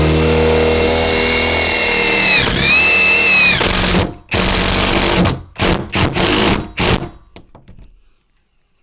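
Power drill driving a self-tapping Tek screw into a Kwikset smart key deadbolt's lock cylinder. The motor runs steadily, drops in pitch under load about two and a half seconds in and recovers, then gives several short trigger bursts before stopping about seven seconds in.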